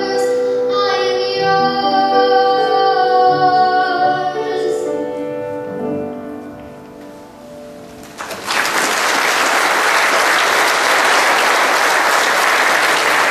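A girl's solo singing voice with keyboard accompaniment, closing the song; the last notes fade out around six to eight seconds in. Then a congregation applauds steadily.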